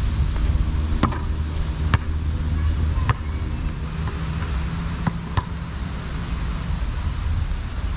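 Cicadas chirring in a steady, high, pulsing drone over a steady low rumble. A basketball bounces sharply on the asphalt a few times, the first three about a second apart.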